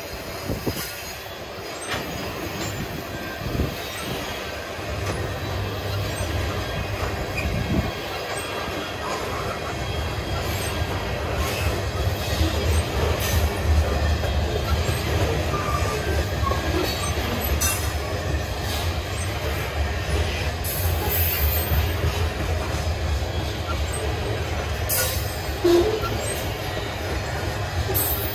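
Freight train cars rolling past on the rails, with a steady rumble of wheels, scattered clanks, and some wheel squeal. The low rumble grows heavier about five seconds in.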